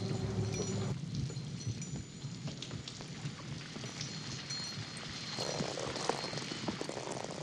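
Rain sound effect: an even patter of rain. A low rumble under it drops away about a second in, and scattered light clicks come in near the end.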